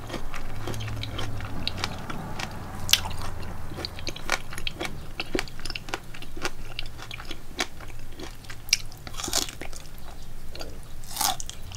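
A person chewing food, with many small, quick mouth clicks and smacks over a low steady hum.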